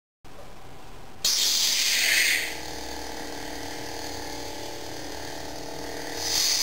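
Darth Vader FX lightsaber replica's sound effects: the blade ignites with a loud surge about a second in, then settles into the steady electric hum of the lit blade, swelling loudly again near the end.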